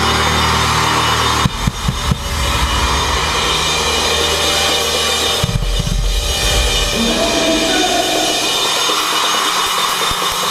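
A live rock band ends a song on a held chord, with a few final drum-kit hits about a second and a half in. After that, arena crowd cheering and screaming takes over, with a couple of low drum thumps near the middle.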